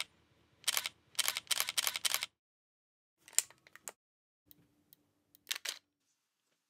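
Camera shutter clicks: single shutter releases, then a rapid burst of shots lasting about a second, followed by a few quieter, sparser clicks.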